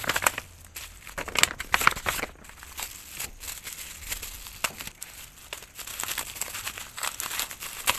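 Plastic wrapping on an album or photocard being handled and peeled open, crinkling and rustling with quick, sharp crackles. The crackles come thickest in the first couple of seconds.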